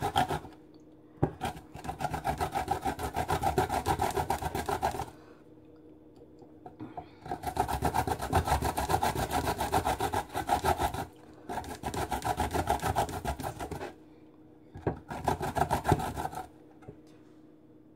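Fresh ginger root grated on a stainless steel box grater: rapid rasping back-and-forth strokes in four bursts, with short pauses between.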